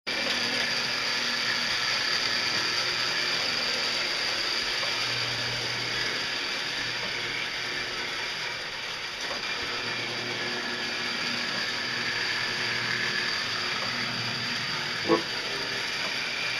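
1959–60 Marx WM Crooks toy steam locomotive running on three-rail tinplate track: its open-frame electric motor and gears make a steady mechanical whir, with the wheels rattling on the rails. A single sharp click comes near the end.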